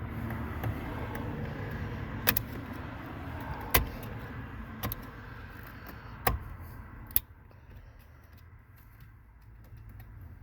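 Carpenter's knife scraping as it shaves down an edge of the ignition switch, with five sharp clicks or taps. The scraping stops about seven seconds in, right after the last click.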